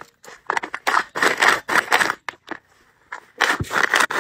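A hand stone is scraped back and forth over sorghum grain on a stone grinding slab, crushing the grain in rough strokes about twice a second with a short pause near the middle. The grain has gone mouldy and clumped, and the grinding breaks it up.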